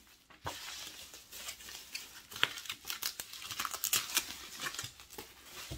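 Plastic bubble wrap crinkling and rustling as it is handled and pulled open by hand, with irregular crackles starting about half a second in.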